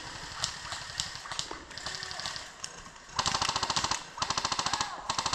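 Airsoft rifle firing on full auto: two loud, rapid bursts of about a second each, starting about three seconds in, with scattered single shots clicking before them.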